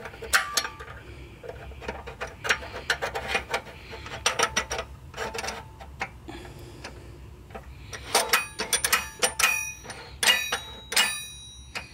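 Steel shift parts in a Ford tractor 5-speed transmission clicking and clinking as a shifter gate is fitted onto its shift rail by hand. Light clicks throughout, with quick runs of sharper metal clinks that ring briefly about eight and ten seconds in.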